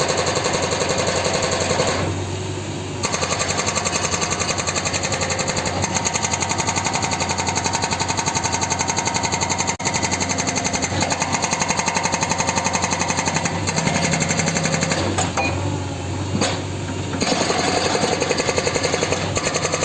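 Hydraulic rock breaker on a JCB 3DX backhoe loader hammering in a fast, even beat. It stops for about a second a couple of seconds in, and again for a second or two near the end, while the machine's engine runs on underneath.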